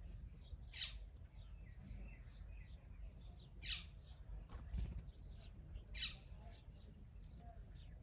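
Small birds chirping, with three louder short calls that sweep downward in pitch, two to three seconds apart, over a low steady rumble.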